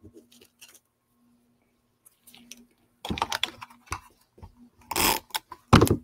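Paper crafting handling sounds: faint paper rustles, then from about halfway a run of quick clicks and rasps as an adhesive tape runner is worked along a paper strip, a louder scrape around five seconds and a thump near the end as the piece is pressed down onto the cardstock page.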